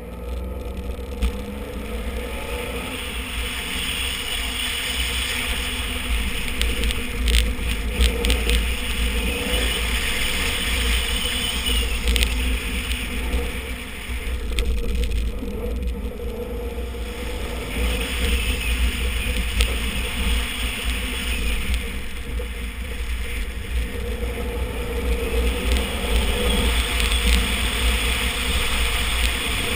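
Rally car engine running hard under load on a dirt course, its pitch rising and falling as the car accelerates and slows for turns. Tyres on loose dirt, a few clicks of stones against the body, and heavy wind rumble on the microphone run under it.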